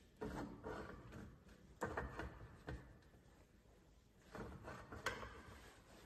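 Bicycle seat post and seat clamp being handled while the saddle is fitted: a few short bursts of rubbing and scraping with sharp clicks, as the post slides in the seat tube and the clamp is worked.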